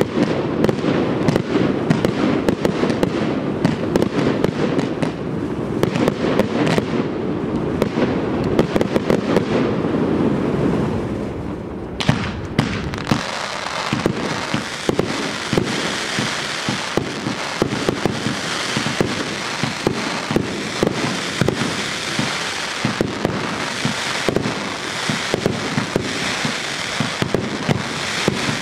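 Fireworks display: a dense, continuous barrage of deep bangs for about the first twelve seconds. It then gives way suddenly to higher crackling and hissing with scattered sharp pops.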